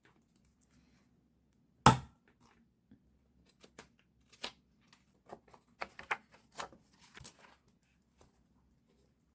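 Stationery being handled on a desk: one sharp loud click about two seconds in, then a scattered run of small clicks and taps.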